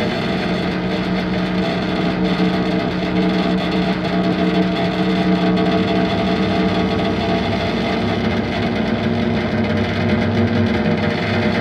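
Droning, heavily distorted music with effects, built on steady held low tones that change little.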